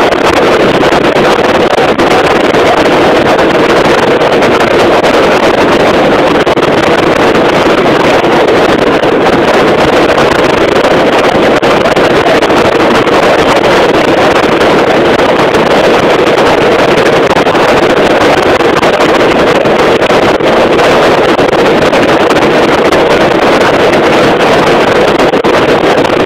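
Hail and rain hitting the roof and windshield of a moving vehicle, heard from inside the cabin as a loud, steady, dense pelting with no letup.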